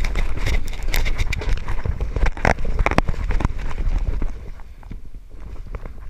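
Hurried footsteps with rattling gear, a quick run of irregular knocks and thuds that thins out and quietens about four seconds in.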